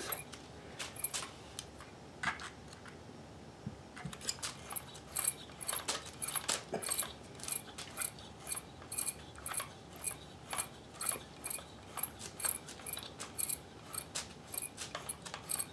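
Kenmore 158.1030 sewing machine's mechanism clicking as it is turned over by hand, a regular click about twice a second after a few scattered ones; the freshly oiled, formerly stiff machine is turning smoothly.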